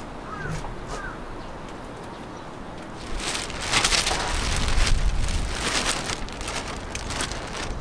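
A few short bird chirps in the first second, then from about three seconds in, a loud crackling rustle of thin plastic sheeting over a low wind rumble on the microphone: a plastic-film cover over a cutting bed stirring in gusts of wind.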